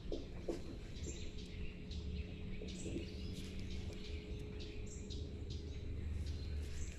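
Small birds chirping in short high calls about once a second over a steady low rumble.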